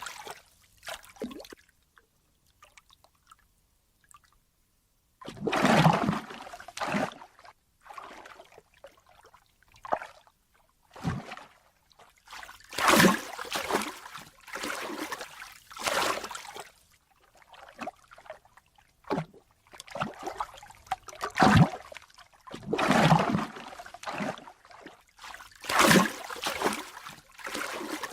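Ocean water splashing and sloshing in irregular surges a second or two apart, with short quiet gaps between them and a longer lull a couple of seconds in.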